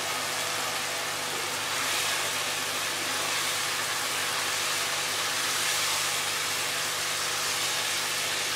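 Onion-tomato masala and boiled chana dal sizzling in a frying pan: a steady hiss, with a faint steady hum underneath.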